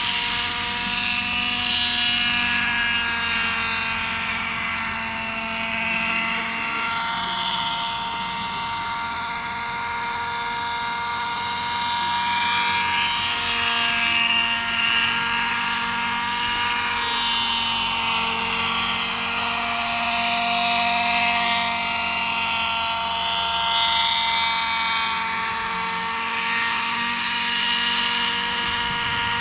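Radio-controlled model helicopter flying, its small two-stroke glow engine running at steady speed with a high whine and rotor noise. The pitch drifts up and down as it moves back and forth.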